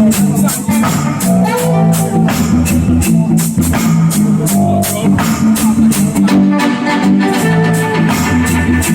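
Loud music played over a sound system: a steady drum beat with a heavy, repeating bass line and guitar.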